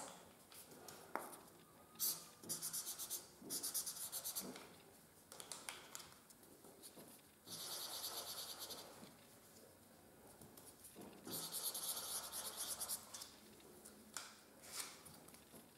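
Felt-tip markers scribbling on paper in several spells of rapid back-and-forth strokes as a flower is drawn and coloured in, with a few light clicks and taps between the spells. Faint.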